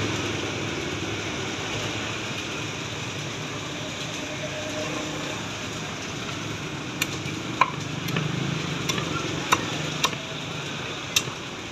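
Cleaver chopping roast duck on a thick round wooden chopping block: about seven sharp chops, irregularly spaced, in the second half, over a steady background hiss.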